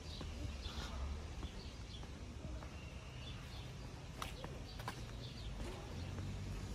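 Quiet street ambience: scattered short bird chirps over a steady low rumble, with two sharp clicks a little past the middle.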